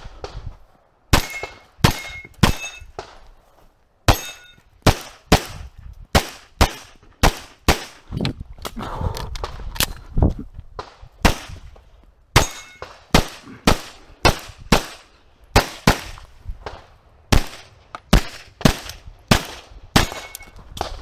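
Handgun shots fired rapidly during a practical shooting (IPSC) stage, often in quick pairs, in strings broken by short pauses.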